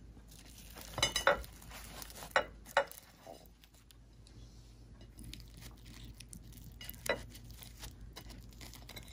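Faint handling sounds of a burger being assembled on a plate: a few light clicks and taps about a second in, twice between two and three seconds, and once around seven seconds.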